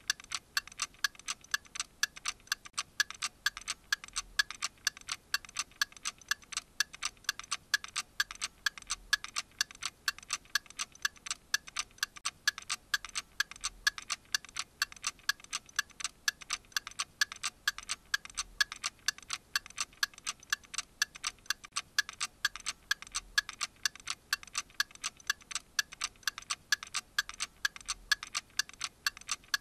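Clock ticking in an even, steady rhythm.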